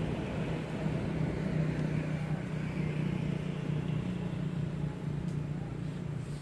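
A vehicle engine running steadily nearby, a continuous low hum.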